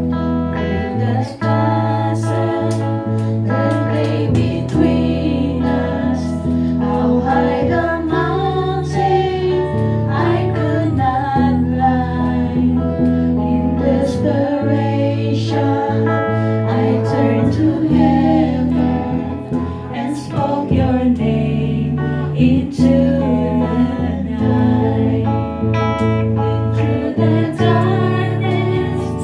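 Two women singing a worship song into microphones, with an electric guitar strummed through a Peavey amplifier. Held low notes change every couple of seconds under the singing.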